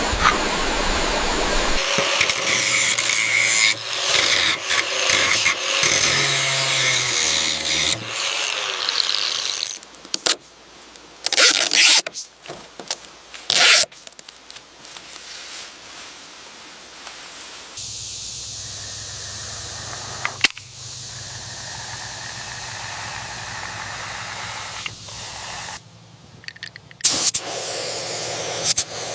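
A run of short, abruptly cut work sounds: scraping and rubbing of tools, several brief loud bursts of noise, then a steady motor hum for several seconds.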